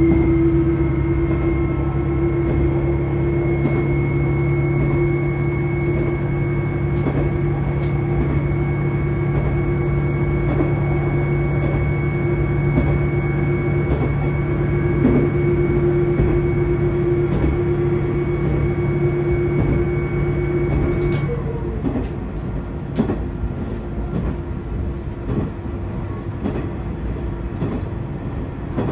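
Tosa Kuroshio Railway 8000-series diesel railcar on the move: a steady engine drone with a whining tone over the rumble of the wheels. About two-thirds of the way through, the engine note drops away as power is shut off and the railcar coasts, leaving the wheel-and-rail rumble with a few sharp clicks.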